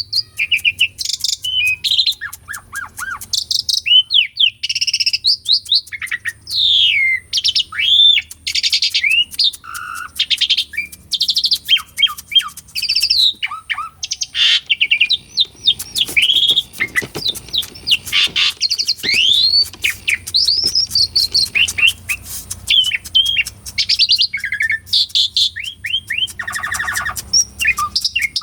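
Jalak suren (pied starling) singing a long, vigorous song. Short whistles slide up and down, mixed with harsh buzzy rasps and rapid clicks, with hardly a pause.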